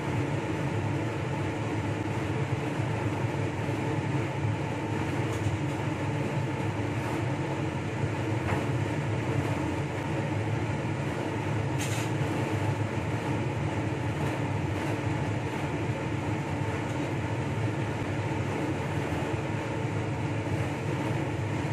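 Steady machine hum of a running fan or blower, even and unchanging. A single light click about twelve seconds in.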